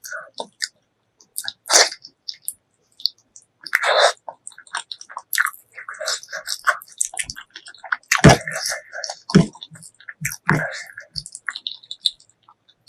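Close-miked mouth sounds of someone eating spicy pork leg curry with white rice: irregular wet chewing and smacking, with louder bites about 2, 4 and 8 seconds in.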